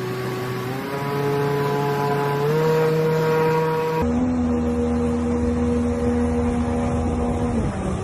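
Heavy truck's diesel engine working hard while driving through deep water, its note stepping up twice in pitch. About halfway it drops abruptly to a lower steady note, which falls away near the end.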